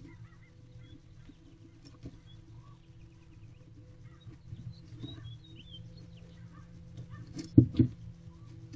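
Barn owl feeding on a rabbit inside a wooden nest box: scattered scrapes and knocks as it tears at the prey, with two loud thumps close together near the end, over a steady low hum. Faint chirps of small birds come in about halfway through.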